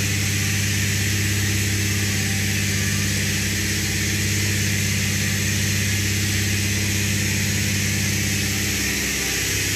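Steady machine hum with a hiss over it, unchanging throughout.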